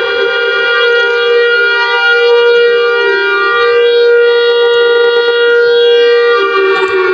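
Emergency alert system (EAS) style alarm tone: a loud, steady, buzzy electronic tone rich in overtones. Its pitch dips slightly about three seconds in and drops again near the end.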